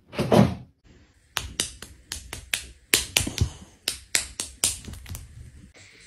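A brief loud sound at the start, then a quick, uneven run of about fifteen sharp clicks like finger snaps, stopping about a second before the end.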